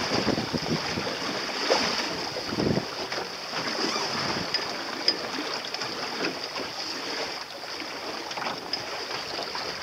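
Sea water splashing and lapping against the hull of a sailboat under way, with wind buffeting the microphone.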